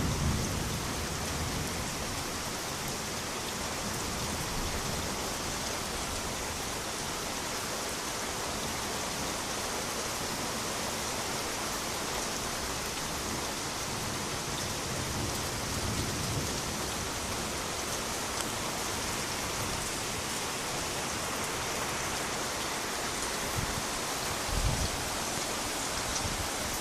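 Steady rain falling during a thunderstorm. A thunder rumble dies away in the first moment, and faint low rumbles of thunder come about two-thirds of the way through and again near the end.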